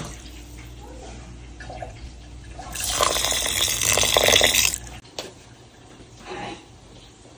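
Water from a kitchen tap running and splashing into a vessel for about two seconds, then cut off suddenly; a few faint short handling sounds come before and after.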